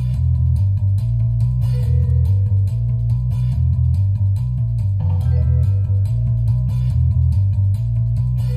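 Instrumental intro music: electric guitar over a prominent bass line with a steady beat.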